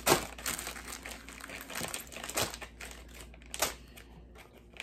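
Plastic snack wrappers crinkling and crackling as they are handled and a bag of nuts is worked open, with a sharp crackle just after the start and another a little past halfway.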